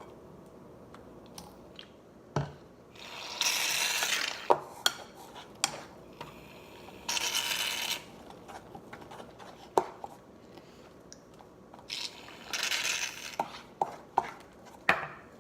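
Slime being mixed in a bowl: light clinks, taps and scrapes of a utensil against the bowl, with three hissing rushes about a second long each.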